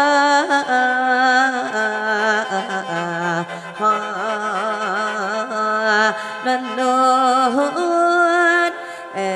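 Mor lam music: khaen (bamboo free-reed mouth organ) accompaniment with a steady drone note under a woman's long, ornamented wordless vocalise, the notes held and shifting about once a second.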